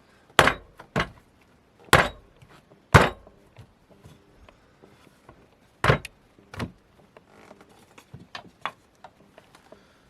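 A series of sharp, irregularly spaced knocks of hard objects against a work surface, about six loud ones with fainter clicks between, as pottery hand tools are handled during a test on clay.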